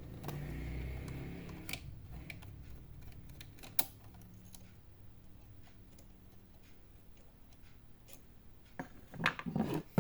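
Scattered sharp clicks and light knocks of a screwdriver and small tools handled against the plastic case of an all-in-one PC while an inner screw is taken out, with a quick cluster of louder clicks near the end.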